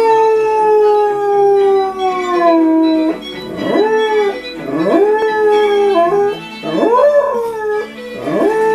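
Briard dog howling along to a TV theme tune: one long howl sliding down in pitch for about three seconds, then four shorter howls that each swoop up and hold. The theme music plays underneath.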